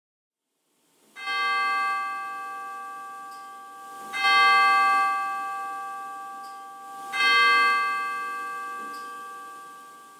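A bell tolls three times, about three seconds apart, after a second of silence. Each stroke rings on and slowly fades before the next.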